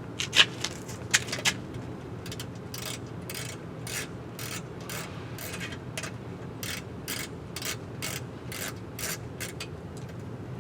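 Panel bolts being unscrewed with a hand tool: a few sharp clicks and knocks at first, then a steady clicking about twice a second as the tool works a bolt out.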